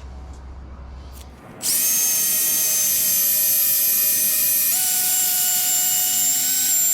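A handheld electric power tool of the drill type starts about a second and a half in and runs with a steady whine. Its pitch steps up about three seconds later as it speeds up, then eases down slightly near the end.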